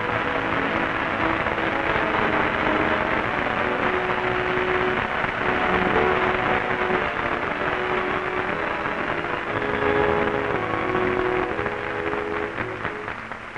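A large theatre audience applauding, with music playing underneath; the applause dies away near the end.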